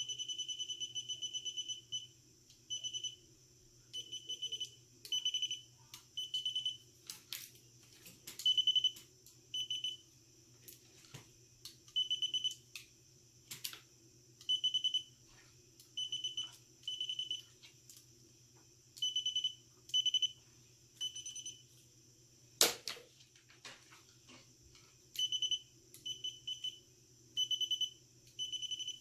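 Gardner Bender holiday light tester's voltage detector giving a high, rapidly pulsing beep, steady for the first couple of seconds and then in short stop-start bursts as it is swept along a dead Christmas light string. The beeping signals voltage in the wire, and it cuts out where power stops. A few sharp handling clicks come through.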